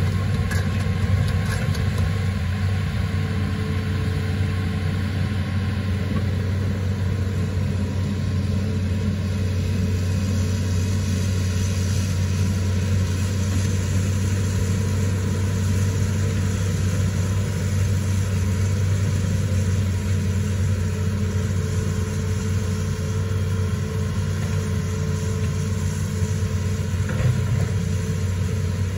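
Hitachi Zaxis 210 amphibious excavator's diesel engine running steadily as the machine moves on its pontoon tracks, a constant low hum without revving.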